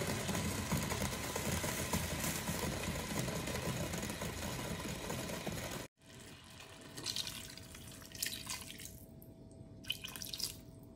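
A steady hiss over the first six seconds, then liquid poured from a cup onto fish pieces in a cooking pot, splashing in three short pours over a faint steady hum.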